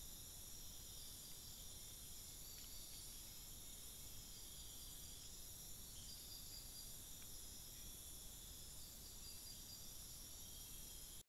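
Night-time tropical forest insect chorus: a steady, faint, high-pitched shrilling in several layered bands, some of them pulsing.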